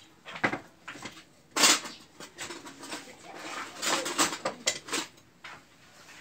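Bowls and spoons knocking and clattering on a large metal tray while mounds of sticky rice are turned out onto it. There are several short clatters, the loudest about one and a half seconds in and another cluster around four seconds.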